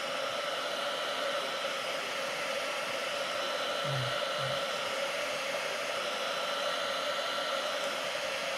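Electric heat gun blowing steadily, shrinking heat-shrink tubing over a soldered wire joint.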